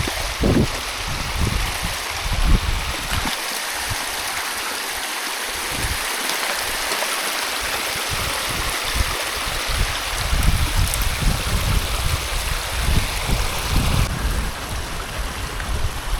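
Steady rush of flowing water, with gusts of wind buffeting the microphone in low rumbles during the first few seconds and again through the last third.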